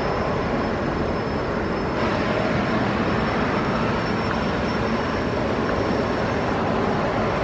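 Jet aircraft turbine running steadily: a continuous rush of noise with a thin, high whine held over it.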